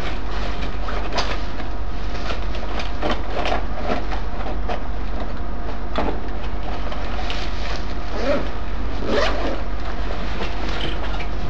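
Rummaging in a fabric backpack: irregular rustles, clicks and a zipper, over a steady loud hum.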